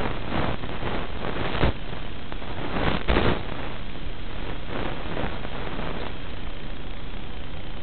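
Steady static-like hiss with no motor tone in it, swelling louder briefly about a second and a half in and again around three seconds.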